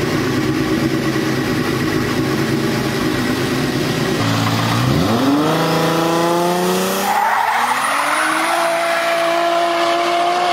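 Volkswagen Touareg W12 engine idling steadily, then, about four seconds in, revving up with a steeply rising pitch and holding high revs near the end, with tyre squeal as the wheels spin in a burnout.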